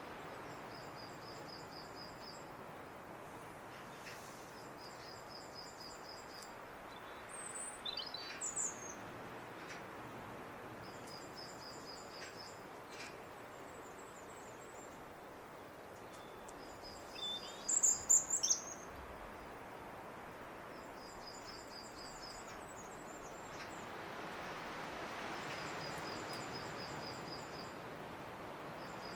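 Robin singing: short, high-pitched trilled phrases repeated every few seconds over steady background noise. Two louder, sharper bird calls with quick falling notes come about eight and eighteen seconds in.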